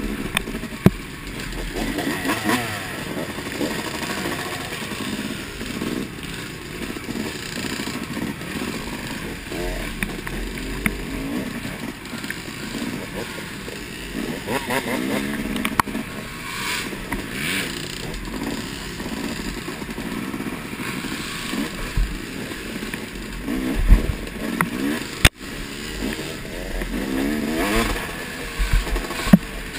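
Yamaha dirt bike engine under way on a rough trail, its revs rising and falling continually as the rider works the throttle, with other dirt bikes running close ahead. A few sharp knocks come through.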